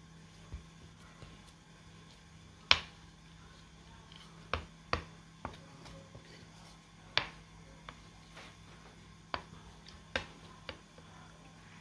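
Wooden spatula slapping and patting a thick mound of ube halaya on a plate, about eight sharp slaps spaced irregularly, the loudest about three seconds in.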